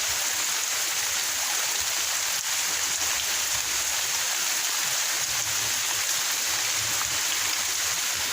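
Heavy rain falling in a steady downpour, an even hiss with no let-up.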